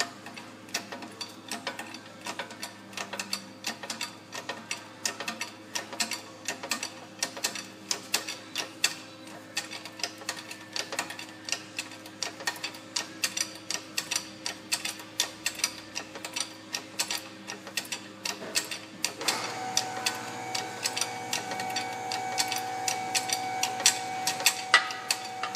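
Shop press forcing the old rear wheel bearing's outer shell out of a Ford Explorer's rear steering knuckle. The metal gives a long run of sharp ticks and cracks, a couple to a few each second and unevenly spaced, as the shell gives way under pressure after being shock-loosened with a sledge.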